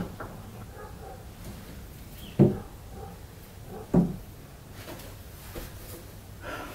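A hinged triangular window knocking shut against its wooden frame twice, about two and a half and four seconds in, with faint handling noise in between.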